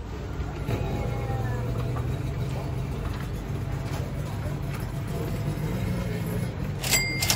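A steady low drone underneath. Near the end, coins drop into the coin slot of a retro ramen vending machine with a sharp metallic clink that keeps ringing.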